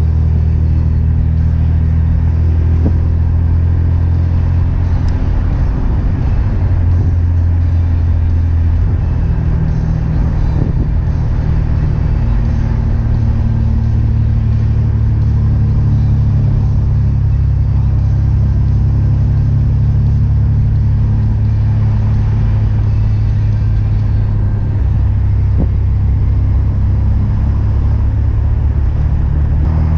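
Chevrolet Omega's naturally aspirated 3.0-litre 12-valve inline-six (C30NE) running under way, its low, steady note coming through a 2.5-inch sport exhaust with two mufflers. The engine pitch steps up and down a few times as the car changes speed.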